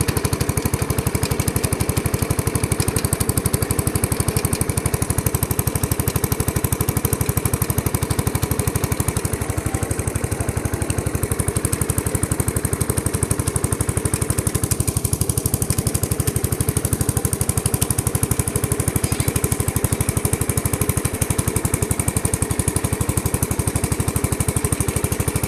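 Riding lawn tractor's small engine running steadily while the tractor drives along, with a rapid, even beat of exhaust pulses.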